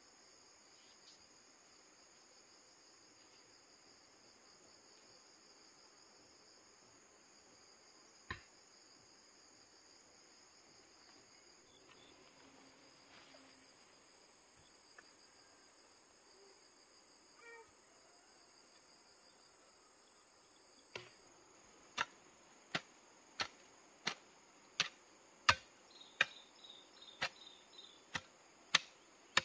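A hand hoe chopping into dry soil in a steady rhythm, about one and a half strikes a second, starting about two-thirds of the way in. Before that, only a steady high drone of insects and a single knock about eight seconds in.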